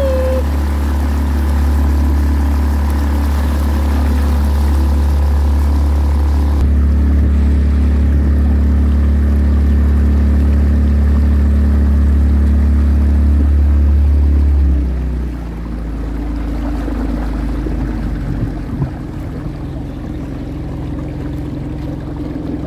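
Small motorboat's engine running steadily under way, a loud low drone. About fifteen seconds in, the engine note drops lower and gets quieter.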